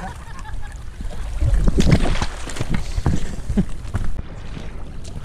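Waterproof boots splashing and sloshing through a shallow creek crossing in a few heavy steps, loudest about two seconds in, over a low rumble on the body-worn mic.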